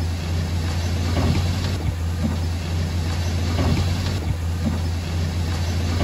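Heavy diesel engine of an earthmoving machine running steadily: a deep drone that swells slightly about every two and a half seconds.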